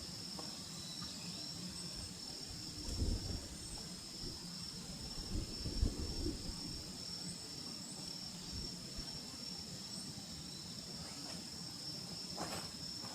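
Singing insects, a steady high-pitched trill, with a few dull low thumps about three and six seconds in and a sharp click near the end.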